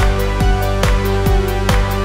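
Background music with a steady beat, a little over two beats a second, over held notes.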